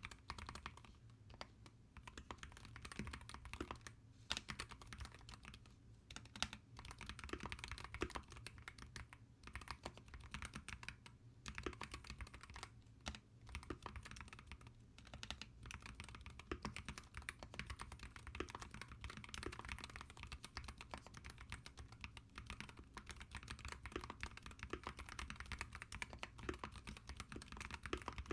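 Continuous typing on a SteelSeries Apex Pro Gen 3 wireless gaming keyboard with magnetic switches: a rapid, steady stream of key clacks, broken by a few short pauses around the middle.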